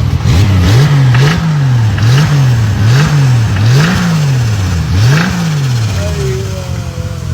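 Car engine revved in repeated blips, climbing and dropping about once a second some six times, then settling back near the end. The owner hears a sound in it he doesn't like and fears damage to the engine block.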